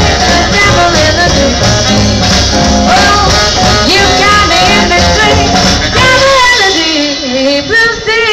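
A small jazz band playing live behind a female singer, with saxophones and drums. From about six seconds in, a long melodic line falls in pitch and then climbs again.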